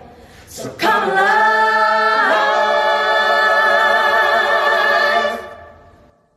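Five-voice a cappella group of men and women singing the closing phrase in harmony, ending on a long held chord that shifts once about two seconds in and then fades out just past five seconds.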